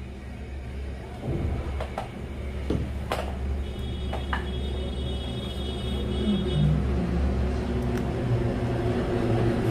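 A steady low mechanical rumble that grows slowly louder, with a few light clicks and a faint high whine in the middle.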